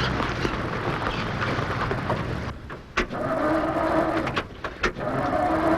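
Truck engine running, then sputtering and cutting out as the tank runs dry, with a few sharp clicks. It is followed by two spells of a rising whir, like the starter cranking without the engine catching.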